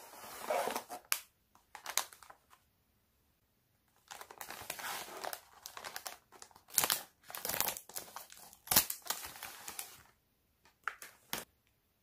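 Crinkling and crackling of a Popin' Cookin' candy kit's packaging as it is opened by hand: a short spell of cardboard and plastic handling, a pause, then several seconds of the plastic inner bag crinkling with a few sharp loud crackles, and two brief crackles near the end.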